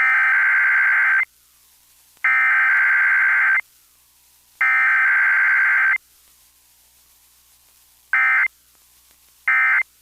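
Emergency Alert System SAME data tones: three identical bursts of the digital header, each about a second and a half long with a second's gap between, then two short bursts of the end-of-message code.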